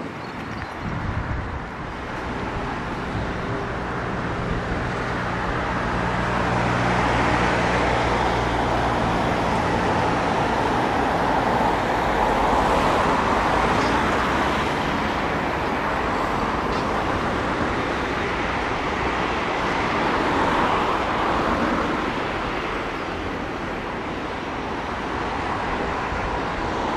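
Road traffic passing, vehicles swelling and fading in turn. For the first ten seconds or so a steady low engine hum runs underneath.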